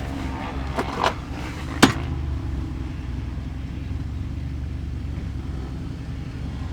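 Vehicle engine idling with a steady low rumble. A couple of short clicks come about a second in, and a sharp knock just before two seconds.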